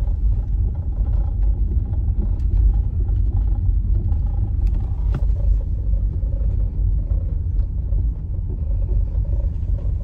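Car driving on an unpaved gravel road, heard from inside the cabin: a steady low rumble of tyres and road noise, with a few faint ticks.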